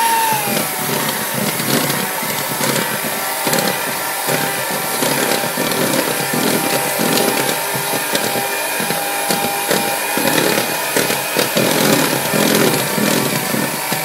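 Philips electric hand mixer running, its beaters churning thin cake batter in a plastic bowl: a steady motor whine that drops a little in pitch in the first second, with rough irregular churning and scraping from the beaters.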